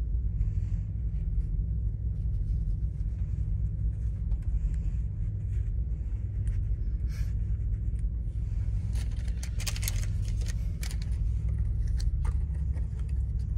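Steady low rumble of an idling truck engine heard inside the sleeper cab, with rustling and scraping of gauze pads being handled, loudest about nine to eleven seconds in.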